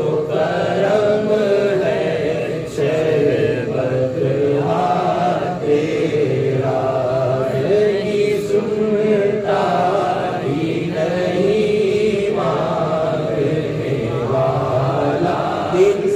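A man singing a naat (Urdu devotional poem) solo into a microphone, in long, wavering melodic lines with short breaks between phrases.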